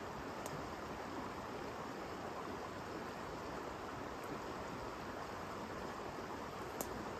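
Steady rush of a flowing river, with a few faint clicks: one about half a second in, one around four seconds and one near the end.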